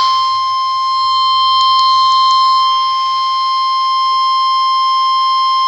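NOAA Weather Radio's 1050 Hz warning alarm tone: one loud, steady, unbroken beep-like tone. It is the alert that a warning, here a severe thunderstorm warning, is about to be broadcast.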